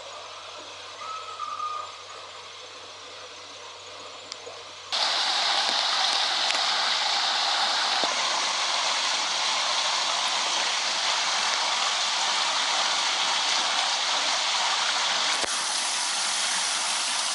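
Quiet background for the first few seconds, then a loud, steady rushing noise that starts abruptly about five seconds in and carries on unchanged.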